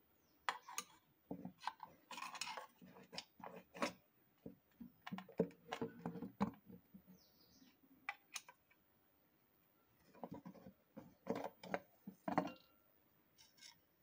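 Irregular metallic clicks, knocks and short scrapes as the metal housing of a ceiling fan motor is turned, handled and worked apart with a small screwdriver, coming in clusters with brief pauses between.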